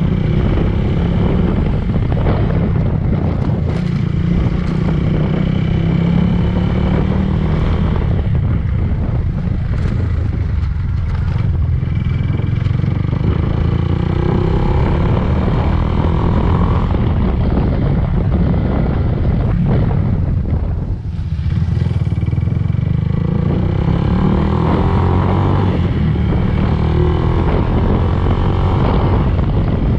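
Yamaha Fazer 150 single-cylinder motorcycle engine running steadily, with a brief dip in level about two-thirds of the way through.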